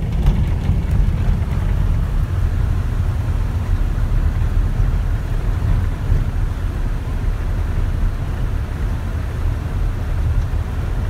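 Steady low rumble of a moving car, engine and tyres on the road, heard from inside the cabin.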